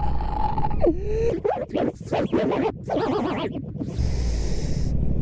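Edited-in cartoon sound effects: a held tone that dips and springs back up like a boing, then a quick choppy scratching run. About four seconds in comes a long breath drawn in.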